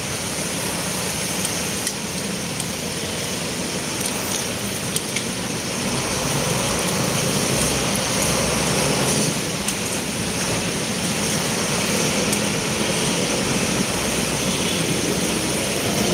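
Motorcycle engine and road noise while riding through city traffic, a steady rumble that grows louder about six seconds in.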